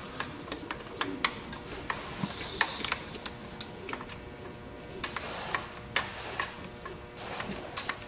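Irregular light metallic clicks and ticks, a few each second, as the milling machine's table is moved across by hand, with a brief faint hiss about five seconds in.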